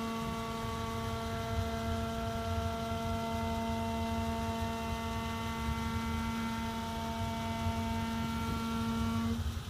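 2014 Jeep Wrangler Rubicon Unlimited's brakes making a steady humming drone on an incline, with a low rumble underneath. The hum cuts out briefly near the end. The dealer calls this brake noise normal.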